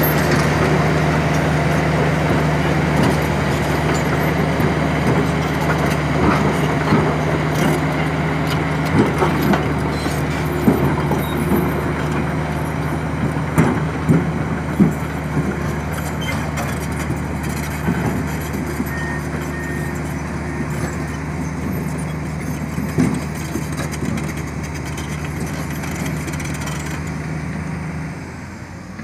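Komatsu PC200 hydraulic excavator's diesel engine running steadily while it digs and loads dirt into a dump truck, with scattered knocks and clunks from the bucket and dirt. The sound drops suddenly quieter about a second before the end.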